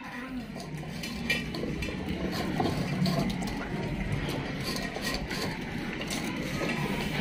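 Stainless steel food bowls clinking and scraping on a tiled floor as several dogs eat from them: a steady scatter of small metallic clicks and knocks.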